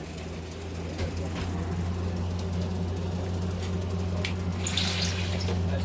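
A steady low mechanical hum that grows slightly louder, with a few sharp clicks and a short hiss about five seconds in.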